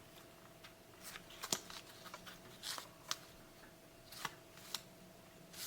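Trading cards being handled and sorted by hand: faint rustling and sliding with a few sharp clicks, over a faint steady hum.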